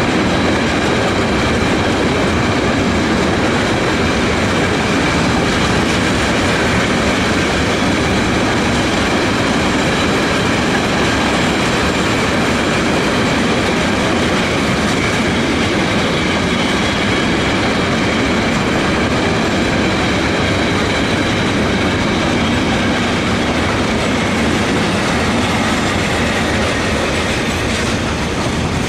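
Container wagons of a freight train rolling past at speed close by: a loud, steady rolling noise of steel wheels on the rails with faint high tones over it, easing slightly at the very end.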